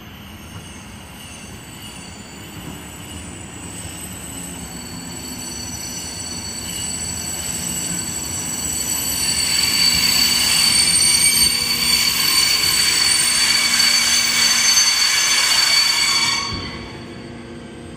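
Siemens Vectron electric locomotive hauling a freight train of flat wagons, approaching and growing steadily louder, with a steady high-pitched wheel squeal over the rumble. The sound drops away suddenly near the end.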